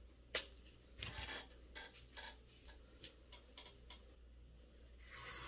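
Green painter's tape being handled and laid on a board. There is a sharp click, then scattered light ticks and crackles as strips are pulled and pressed down, and near the end a rasping noise of tape being pulled off the roll.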